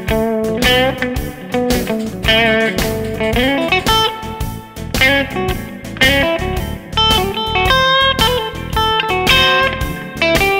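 Background music: electric guitar playing a lead line with bent, wavering notes over a steady beat.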